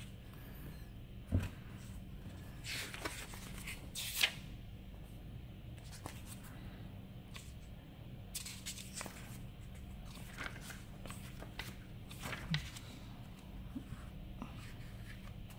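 Pages of a thick paperback manga omnibus being leafed through by hand: soft, irregular paper rustles and swishes, over a faint steady low hum.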